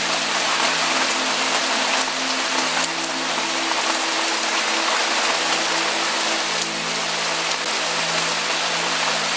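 Steady rain: a dense, even hiss with the patter of individual drops, over a low steady hum.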